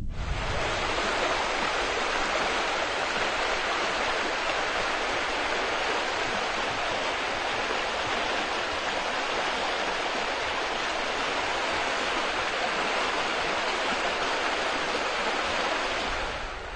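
Steady rush of a river running fast over shallow rocky rapids. It starts abruptly and drops away shortly before the end.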